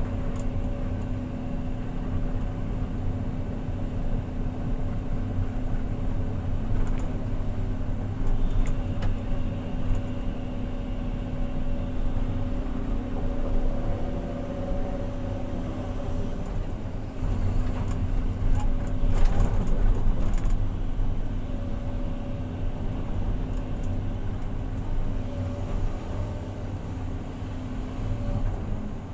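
Hydraulic excavator's diesel engine running steadily, heard from inside the cab, while the arm and bucket dig soil. The engine and hydraulics load up and get louder about two-thirds through, with a few sharp clicks.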